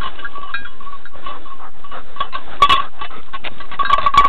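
A hunting dog panting close to the microphone, with rustling among dry leaves and grass and light intermittent clinking.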